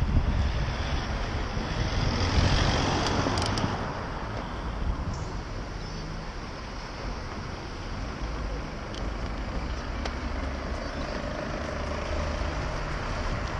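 Street traffic noise heard from a moving recumbent bicycle, with low wind rumble on the microphone. It swells about two seconds in, then settles to a steady noise.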